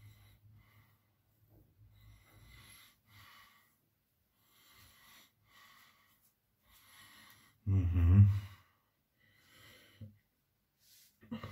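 A man breathing through his nose, faint and hissy, with one loud, short throat noise about eight seconds in and a small click near the end.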